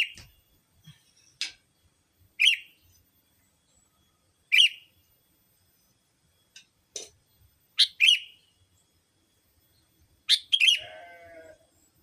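Sooty-headed bulbul (kutilang) calling: short, sharp notes that sweep down in pitch, repeated at irregular gaps, then a longer, harsher chattering call near the end.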